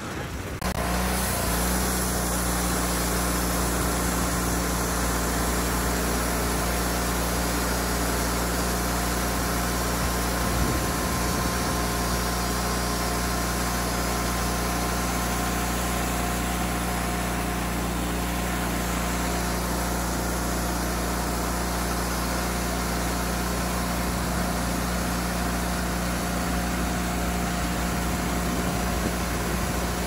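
Wood-Mizer LT40 band sawmill's engine running steadily at a constant speed, with a steady hum over it.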